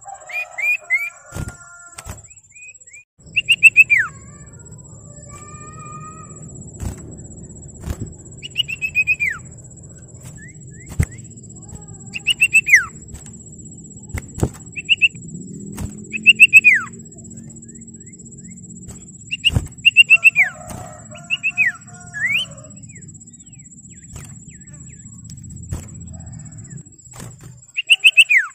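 Common iora (cipoh/sirtu) calling: repeated quick runs of chirps and long whistles that slide downward, in phrases a second or two apart. Under the calls are a low hum and occasional sharp clicks.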